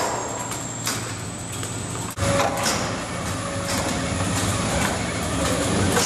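Rotary inside/outside poultry bird washer and its overhead conveyor running: a steady mechanical hum with scattered metallic clicks and clatter. The sound changes abruptly about two seconds in and carries on with more low hum.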